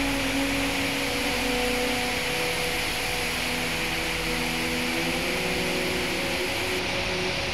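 Heavy rain pouring down in a steady, dense hiss. Faint held tones underneath change pitch now and then.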